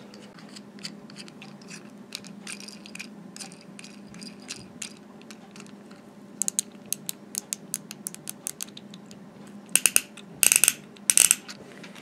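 Small plastic clicks and taps as the buttons of a fidget-toy keychain figure are pressed and fiddled with. Near the end come three louder, quick clusters of clicks.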